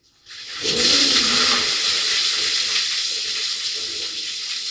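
A bucket of water poured over a person's head, splashing down onto a tiled shower floor. The rush starts about half a second in, is loudest near one second, then slowly eases off.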